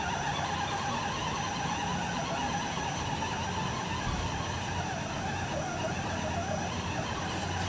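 Electric drive motor and geartrain of a radio-controlled 1/6-scale truck on an Axial Wraith chassis, a steady whirring whine that wavers in pitch as it drives across grass. The sound cuts off abruptly at the end.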